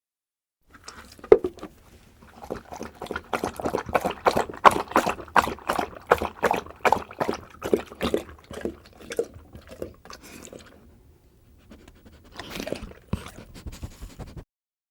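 Dog lapping water from a bowl in quick, regular laps, about two to three a second; it pauses about ten seconds in, then laps a few more times before stopping.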